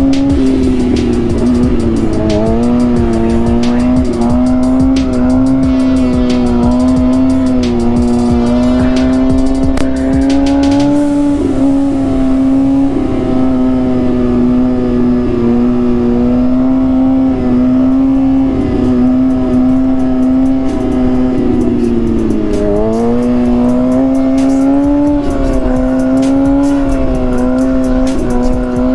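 Motorcycle engine running at a steady cruising speed under wind noise, its note dipping and rising again briefly about 22 seconds in.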